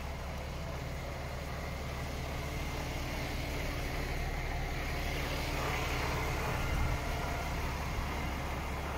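DAF CF 400 tractor unit's inline-six diesel engine idling steadily.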